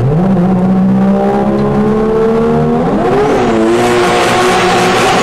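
Vehicle engine at high speed, holding a steady pitch, then rising briefly about three seconds in before settling back, with rushing wind noise growing from then on.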